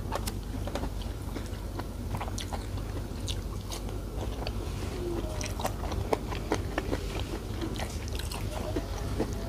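A person chewing a mouthful of rice and vegetables, eaten by hand: irregular wet clicks and smacks of the mouth, picked up close by a clip-on microphone.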